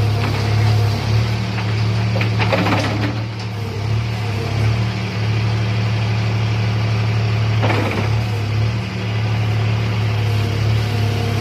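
John Deere 5310 tractor's diesel engine running steadily, with two brief rushing noises over it, about two and a half and eight seconds in.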